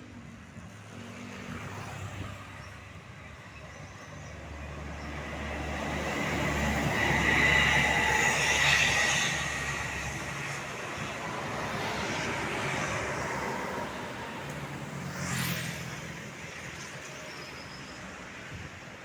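Road traffic passing close by: a heavy vehicle's engine rumble and tyre noise swell to a peak about seven to nine seconds in, then fade. A second vehicle passes briefly around fifteen seconds in.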